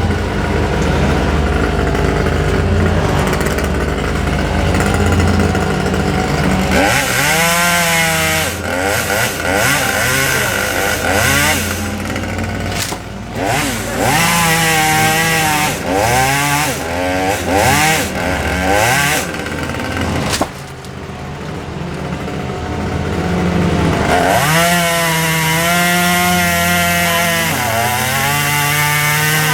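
Chainsaw revving and cutting in repeated bursts, its pitch rising and falling, over a steady engine drone underneath. The saw pauses for a few seconds about two-thirds of the way through, then starts revving again.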